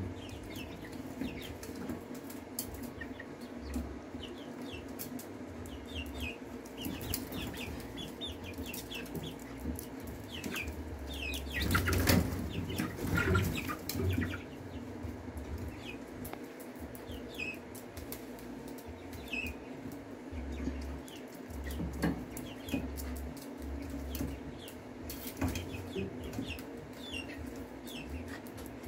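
Young chickens, almost eight weeks old, peeping and clucking while flapping their wings, with the loudest flapping about twelve to fourteen seconds in. A steady low hum runs underneath.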